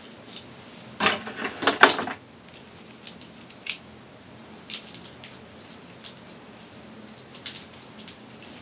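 Hands sectioning curly hair with a plastic comb: a loud burst of rustling and clicking about a second in, then scattered light clicks and rustles.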